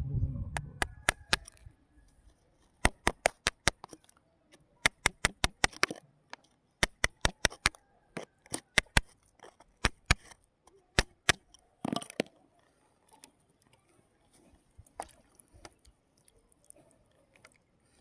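Thin metal rod prodding and scraping through wet sandy gravel, clicking sharply against pebbles in quick runs of ticks, with one longer, louder scrape about twelve seconds in and only scattered light ticks after it.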